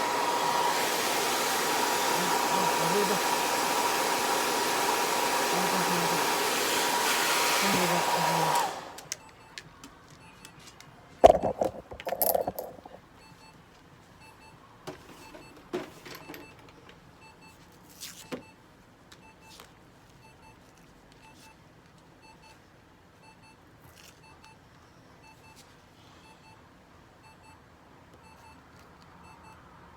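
Hair dryer blowing steadily with a high whine, switched off about nine seconds in. After it, a few scattered knocks and clicks from handling.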